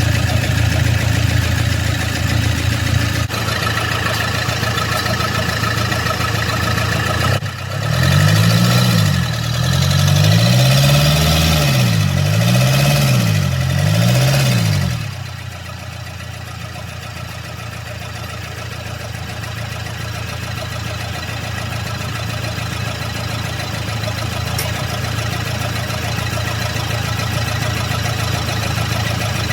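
Toyota 2KD four-cylinder diesel engine idling, then revved up and down about four times in quick succession before settling back to a quieter idle.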